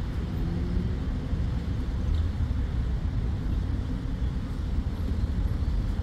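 Street traffic noise: a steady low rumble with no distinct events.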